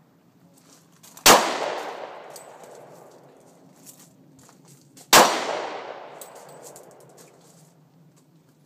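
Two handgun shots about four seconds apart, each a sharp crack followed by a long echo that fades over about two seconds.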